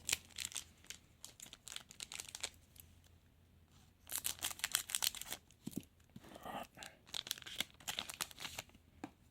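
Trading card packet wrappers being torn open and crinkled by hand, in three spells of quick crackling.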